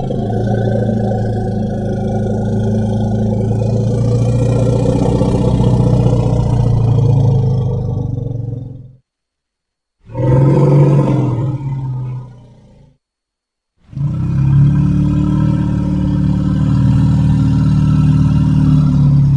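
Dinosaur roar sound effect: three long, low, rough roars, the first lasting about nine seconds, then a short one of about three seconds, then another of about six, each separated by a gap of dead silence.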